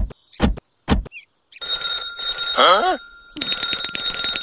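Three sharp taps of a small tool against the toy tractor, about half a second apart, then a telephone ringing in two rapid bell-like bursts, with a short warbling glide near the end of the first burst.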